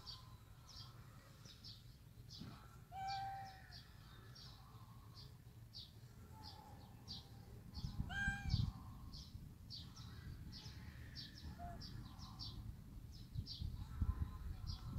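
Birdsong: a bird repeating short, high chirps about twice a second, with two lower, longer calls, one about 3 seconds in and one about 8 seconds in. A faint low rumble of background noise lies underneath, with a few low thumps near the end.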